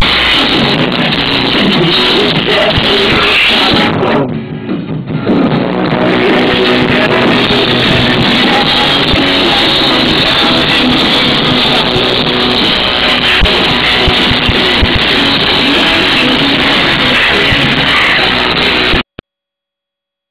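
A rock band playing live, loud and harsh through a mobile phone's microphone. The music drops away briefly about four seconds in, then cuts off suddenly near the end.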